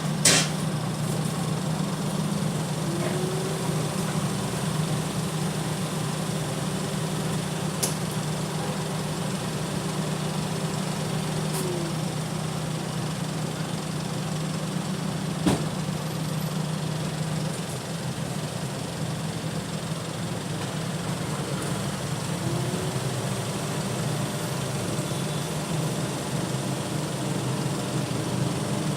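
A steady low mechanical drone like an idling motor, with a fainter tone that rises, holds for several seconds, then falls, twice. Two sharp clicks cut through it.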